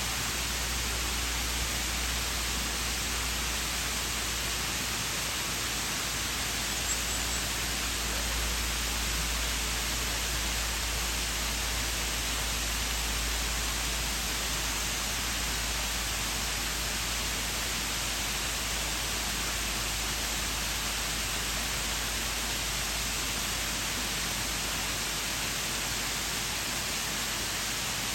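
Waterfall with a steady, even rush of falling water.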